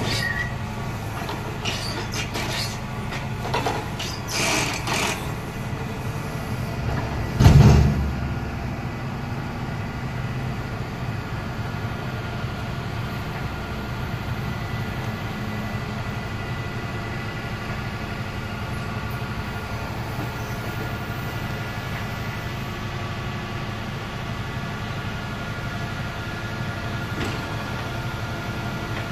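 Truck engine running steadily to drive a Palfinger PK 10000 truck-mounted knuckle-boom crane as it lifts and swings a clamped stack of concrete blocks. A few short sharp noises come in the first five seconds, and one heavy thump about seven seconds in.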